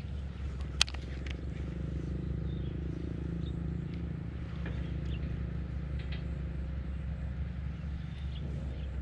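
A steady low mechanical hum, with a single sharp click a little under a second in and a few faint ticks.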